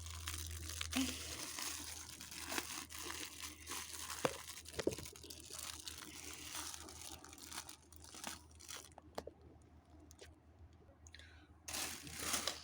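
Crinkling and tearing of a toy's packaging being pulled at by hand, with scattered clicks. It thins out over the second half, then a louder rustle comes near the end.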